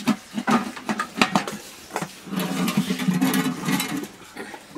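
Aluminium pots and lids being handled: several separate knocks and clinks in the first two seconds, then about two seconds of continuous rattling scrape of metal cookware.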